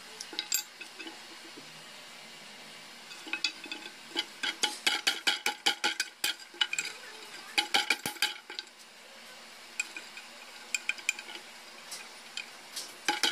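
Old Simplex cast-iron screw jack worked by hand with its steel lever bar: quick runs of metallic clicks and clinks from the bar in the jack's head, coming in several short runs with pauses between.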